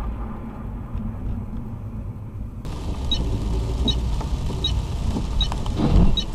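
Low, steady rumble of a car's engine and tyres heard from inside the cabin. After a cut about two and a half seconds in, a small tick repeats about every three-quarters of a second, and a louder thump comes near the end.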